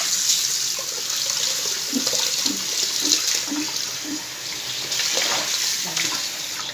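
Kitchen tap running steadily, its stream splashing into a stainless steel bowl of parboiled beef chunks being rinsed by hand in the sink to wash off the scum.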